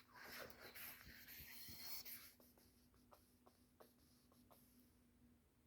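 Faint rustling and scratching handling noise for about two seconds, then near silence with a few soft clicks.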